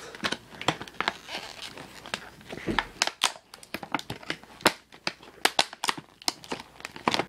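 Stiff clear plastic packaging crinkling and crackling as it is handled and pried open by hand, with sharp irregular cracks throughout.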